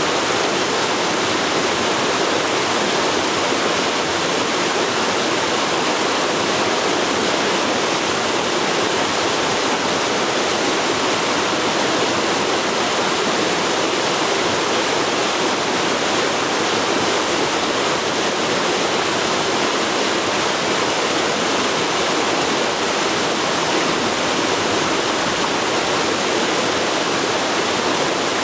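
A forest river rushing steadily over rocks, a loud even wash of flowing water.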